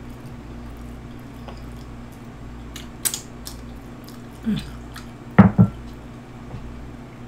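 Close-miked eating sounds: soft, wet chewing and mouth noises with a few sharp clicks, and two short hummed, falling 'mm' sounds past the middle, the second louder. A steady low hum lies underneath.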